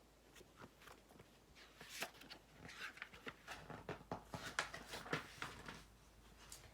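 Paper rustling with light clicks and taps as the pages of a picture book are handled and turned.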